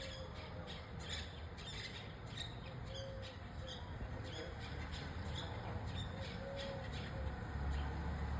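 Birds chirping: short, sharp, high calls repeating about twice a second, with a few brief low notes among them. A low rumble underneath grows louder near the end.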